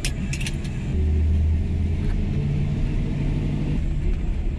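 A square-body Chevrolet pickup's engine running as it drives, heard from inside the cab; it gets louder about a second in, as under acceleration, and its note shifts higher through the middle. A few short clicks come right at the start.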